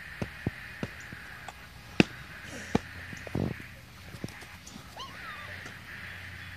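A handful of sharp, isolated clicks or taps, the loudest about two seconds in, over a steady faint outdoor hiss, with a short rasping sound a little past the middle.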